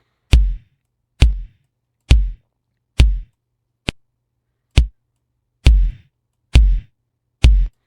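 Programmed electronic drum loop playing back from a DAW: sampled kick drum hits with a short reverb tail, in a steady beat a little faster than one hit per second. One hit near the middle is shorter and sharper, a click.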